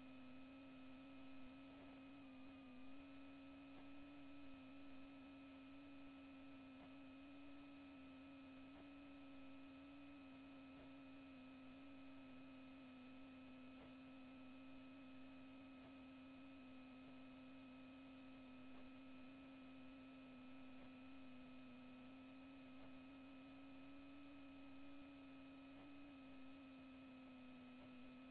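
Near silence apart from a faint, steady electrical hum: one low tone with a few fainter higher tones above it, over a light hiss.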